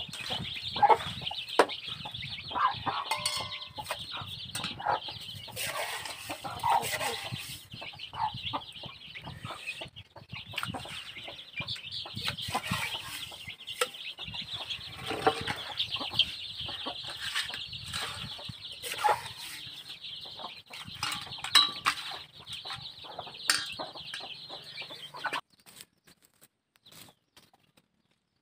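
A brood of chicks peeping continuously, with hens clucking and scattered knocks; it stops abruptly near the end.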